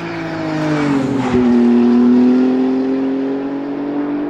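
BMW M4 GT3 race car's twin-turbo 3.0-litre straight-six P58 engine running past, its pitch dropping about a second in, then holding nearly steady and slowly rising as the car pulls away, loudest near the middle.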